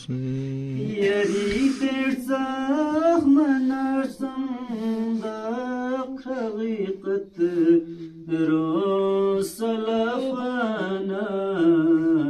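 Unaccompanied voices chanting a recitation to a slow, ornamented melody, with short breaks between phrases.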